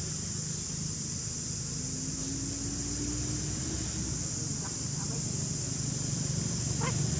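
Steady high-pitched insect drone with a low hum underneath; a few short high squeaks come in near the end.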